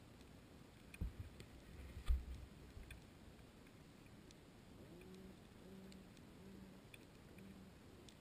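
Faint underwater sound picked up by a GoPro in its housing on the sea bottom: two low thumps about one and two seconds in, scattered faint clicks, and a faint low hum coming in short pulses in the second half.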